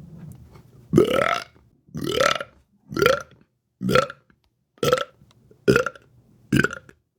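A woman belching in a rapid series: seven loud burps about a second apart, each sweeping up in pitch, the first ones drawn out and the later ones shorter.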